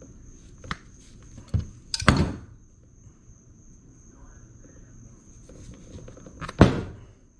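Metal knocks and clanks from working on a seized lowrider hydraulic cylinder that will not come apart: a few sharp strikes, the loudest about two seconds in and again near the end.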